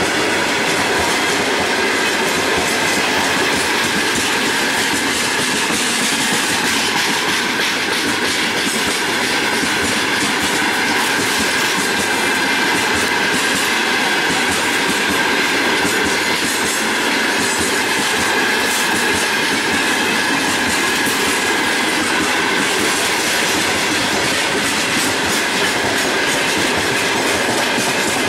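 Freight train of open gondola wagons rolling past close by: a steady rumble and clatter of steel wheels and bogies on the rails, with a faint steady ringing tone above it.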